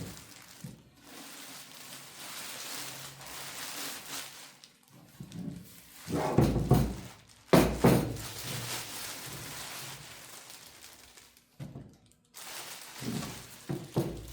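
Thunks, knocks and scraping of metal server-chassis parts being handled and set down, with a couple of loud thumps midway.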